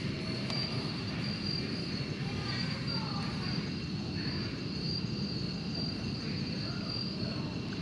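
Night insect chorus: crickets keep up a steady high trill over an even, low background noise.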